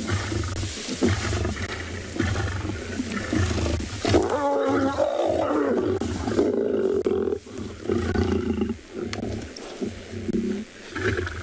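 Lions growling over a freshly killed warthog as they feed, a rough low rumble that keeps going, with a louder wavering call about four seconds in.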